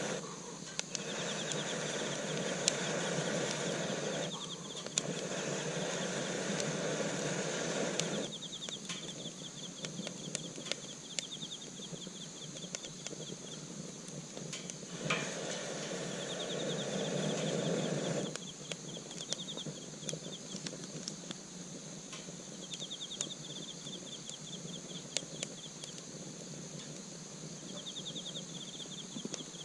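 Insects trilling in short repeated bursts, with scattered sharp crackles like a wood campfire. A steady hiss sounds over them and cuts off abruptly twice.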